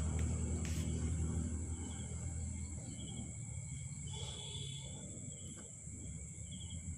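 Quiet background noise: a steady low hum and a steady high whine, with a few short chirps scattered through it.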